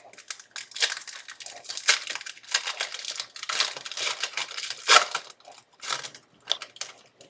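Plastic foil wrapper of a football card pack crinkling as it is torn open and handled, a dense run of crackling for about five seconds, then a few scattered crinkles.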